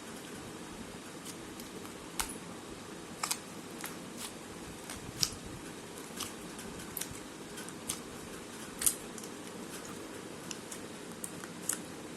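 Slime being squeezed and worked by hand, giving about a dozen irregular, sharp clicks over a steady background hiss.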